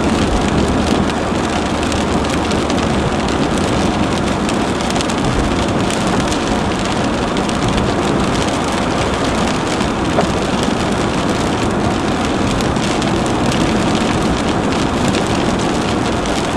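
Heavy rain hitting a moving car's roof and windshield, a steady hiss full of fine taps, with tyre and road noise on the wet highway underneath.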